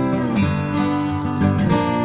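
Background music led by acoustic guitar, with some notes sliding in pitch.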